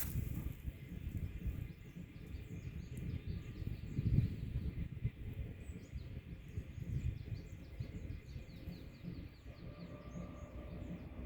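Small birds chirping in quick runs of short, high notes throughout, over a steady low outdoor rumble.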